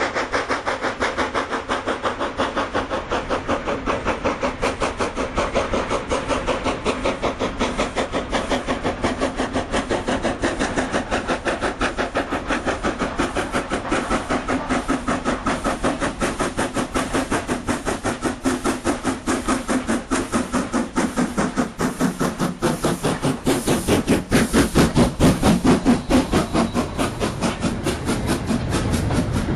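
Steam locomotive pulling away, its exhaust chuffing in an even rhythm that quickens as the train gathers speed, heard from the carriages behind; the beats grow louder for a few seconds near the end.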